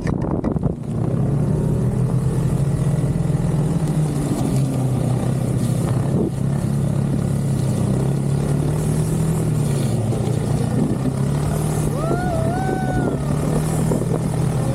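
Snowmobile engine running steadily while riding, its pitch easing up and down a little. About twelve seconds in, a short rising-and-falling tone sounds briefly over it.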